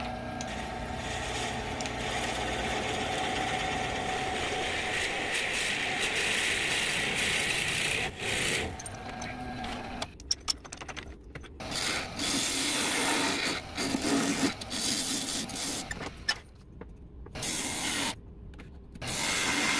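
Forstner bit in a Jacobs chuck boring into wood spinning slowly on a lathe: a steady scraping cut for about eight seconds. After that, a hand-held turning tool cuts the bore wider in short bursts with pauses between them.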